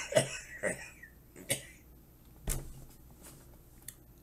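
A man with a head cold coughing: a strong cough right at the start, then a few shorter, fainter coughs spaced about a second apart.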